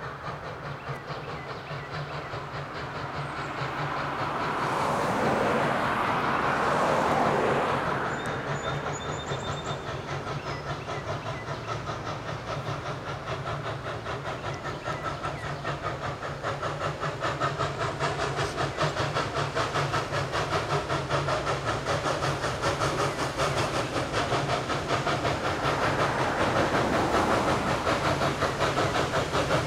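Southern Railway 4501, a 2-8-2 Mikado steam locomotive, working toward the listener: a rapid, regular beat of exhaust that grows louder as it approaches. A broad swell of noise rises and falls between about four and eight seconds in.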